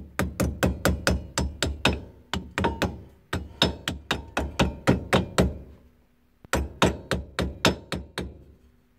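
Hammer tapping lightly and quickly on a trailer's drum brake hub, about five metallic strikes a second in three runs with short pauses, carefully seating the hub's dust cap.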